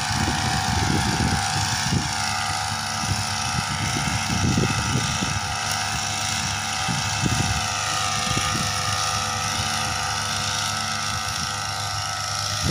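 Small engine of a motorized pesticide sprayer running steadily at high revs, its pitch wavering only slightly, with irregular low rumbles underneath.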